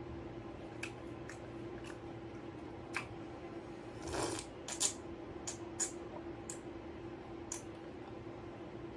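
Drinking from a plastic cup: a scatter of small sharp clicks and clinks, with a louder noisy burst about four seconds in, over a steady faint hum.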